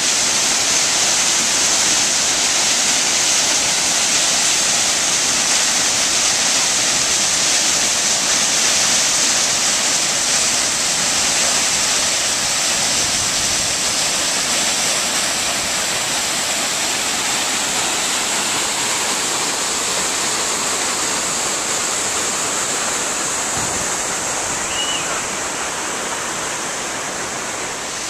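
Waterfall pouring: a steady, loud rush of falling water with a strong hiss.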